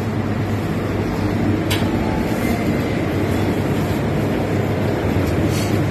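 Steady low hum and rumble of a convenience store's interior, with a light click about two seconds in and another near the end.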